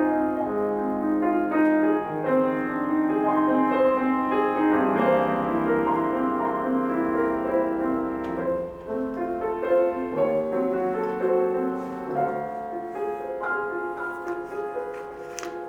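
Solo piano playing a classical piece, with held chords under a moving melody.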